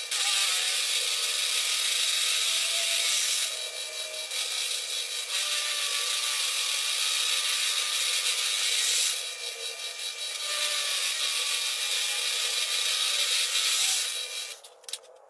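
Drill press with a large twist bit cutting through thick steel plate: a steady, loud grinding hiss with a faint wavering squeal as the bit throws curled chips. The cut eases off twice for a second or so, then stops near the end.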